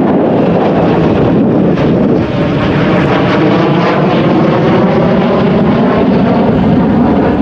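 Loud, steady jet noise from a B-2A Spirit stealth bomber's four General Electric F118 turbofan engines as it flies past low overhead.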